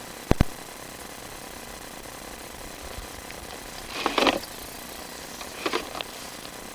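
Sewer inspection camera push cable and reel being handled: two sharp clicks near the start, then two short bursts of rattling clatter about four and six seconds in, over a steady faint hiss.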